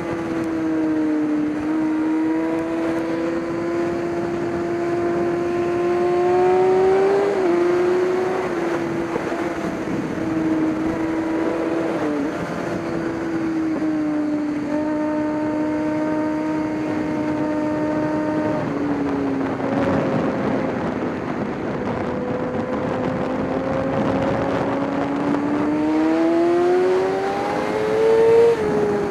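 Racing engine running under load, its note climbing slowly and then dropping suddenly several times as the rider or driver shifts or lifts, with a steady rush of noise underneath.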